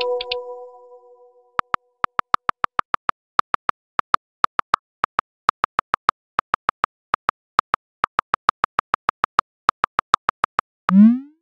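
Electronic keyboard clicks from a texting app, a quick uneven run of short pitched taps at about four a second as a message is typed. A chime rings out and fades in the first second and a half, and near the end a rising swoop plays as the message is sent.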